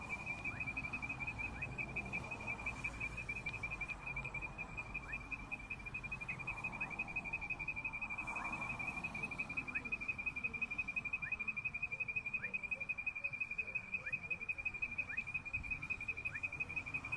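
An insect's continuous high-pitched pulsing trill, a rapid even pulse on one steady pitch, with faint short rising notes from another creature repeating about once a second beneath it.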